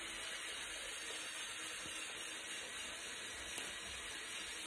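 Electric motors of a Lego Technic Liebherr R9800 excavator model driving its crawler tracks: a steady, hissy whir.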